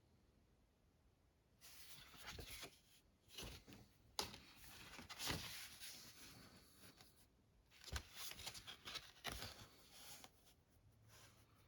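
Faint rustling and a few light clicks of plastic coin blister packs being handled, in short spells with near silence between.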